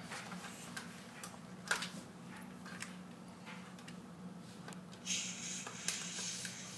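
Faint clicks of plastic toy trains being handled at a plastic toy fuel station, over a low steady hum, with a soft hiss about five seconds in.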